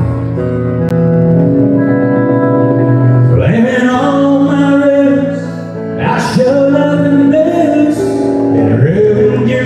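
Live country band playing, with guitars and drums; a man's voice comes in singing about three seconds in.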